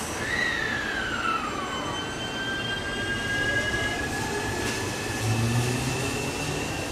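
Y000-series electric train's early Toshiba IGBT VVVF inverter whining as the train pulls away and accelerates. A whine falls in pitch over the first two seconds, then steadier high whines take over and shift in pitch partway through.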